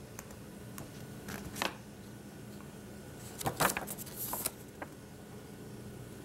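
Folded paper brochure handled by hand, its panels turned and unfolded: a few short paper rustles and crinkles, the loudest about three and a half seconds in.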